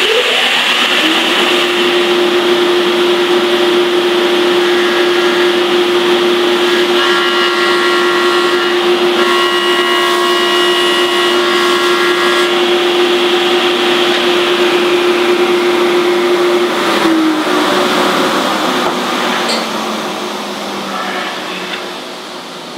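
Table saw running steadily with a steady hum while its blade, set for a very shallow cut, scores a narrow U-shaped groove into the top of a wooden chair seat blank pushed across and pivoted on a sliding jig. About seventeen seconds in the saw is switched off and winds down slowly.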